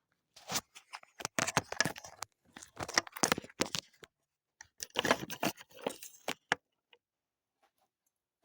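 Metal hand tools clinking and rattling irregularly: a 7/16 socket being handled and fitted on a ratchet. The clatter stops about two-thirds of the way through.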